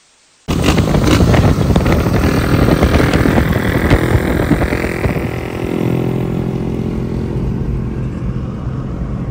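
Small motorcycle engine running, starting abruptly and loud, rough and busy at first, then settling into a steady even note about halfway through.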